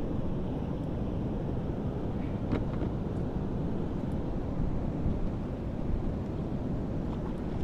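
Steady wind buffeting the microphone over the rush of turbulent river water below a dam spillway, with a faint tick about two and a half seconds in.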